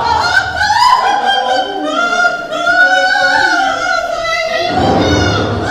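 Operatic singing: a voice holding long, wavering notes, stopping about a second before the end.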